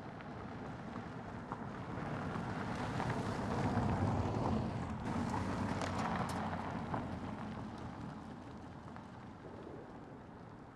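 2020 Toyota Corolla sedan driving past on a dirt road. Tyre and engine noise swells to a peak about four seconds in, then fades as the car moves away.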